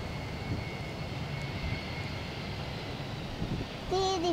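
BAe 146 four-engined jet airliner landing, its engines a steady distant rumble with a faint high whine that fades out about three seconds in. A child's singing voice starts near the end.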